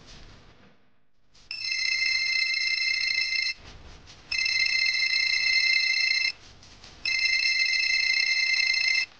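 Mobile phone ringing: three rings of about two seconds each, a steady high electronic tone, with short gaps between.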